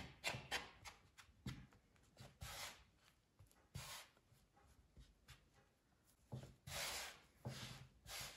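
Faint scraping of a fork through flour and egg on a wooden pastry board, then floury hands rubbing and pressing the dough on the board, in short, separate strokes, the longest about seven seconds in.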